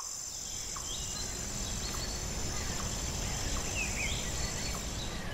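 Outdoor ambience: a few short bird chirps scattered over a steady high-pitched whine and a low rumble.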